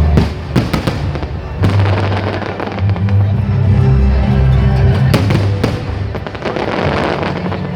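Fireworks bursting: several sharp bangs, some near the start and a cluster around five seconds in, with music playing underneath on a steady bass line.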